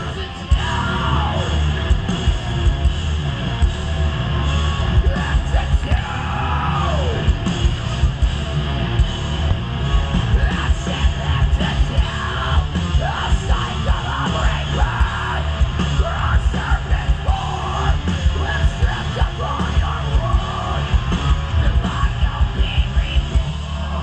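Metalcore band playing live at full volume: heavy distorted guitars and bass with hard-hit drums, and yelled vocals that fall in pitch about a second in and again around seven seconds. Near the end the drums break into a fast run of hits. Heard loud through a camera mic in the crowd.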